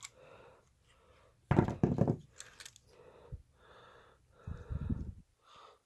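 A plastic coin tube being opened and silver Barber half dollars being taken out and handled: a sharp click, then irregular clicks, knocks and rustling.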